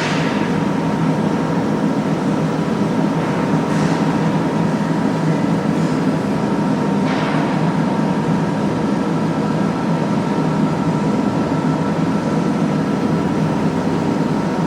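CNC press brake's motor running with a steady hum and a thin steady whine, with brief hissing swishes at the start, about four seconds in and about seven seconds in.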